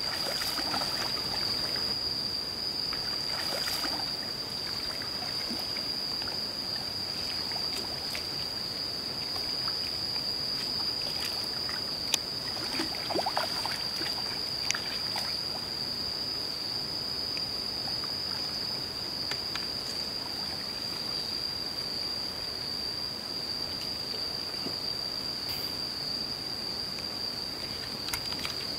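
A steady high-pitched insect drone over the sound of a hooked fish splashing and thrashing at the water's surface, with a few sharper splashes near the start and around the middle.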